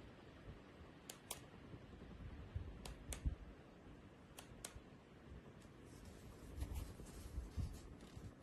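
Light, sharp clicks coming in pairs about every one and a half seconds, over a low rumble of handling noise.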